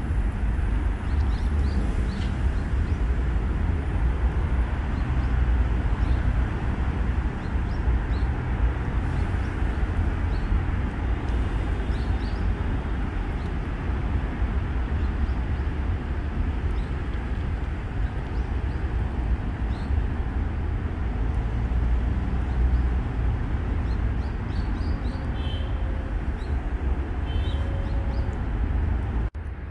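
Steady low outdoor rumble, with faint scattered ticks and a few short high chirps near the end.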